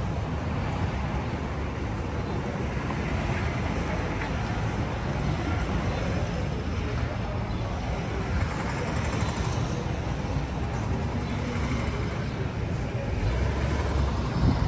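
City street ambience: steady traffic noise from passing vehicles, with people's voices mixed in, and a louder low rumble of a vehicle near the end.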